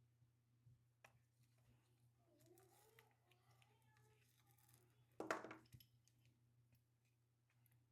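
Near silence: faint clicks of small camera parts and screws being handled, over a low steady hum. One short, louder sound comes about five seconds in.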